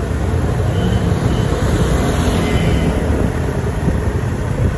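Steady rumble of road vehicles, a motor vehicle engine running with traffic noise, with no horn sounding.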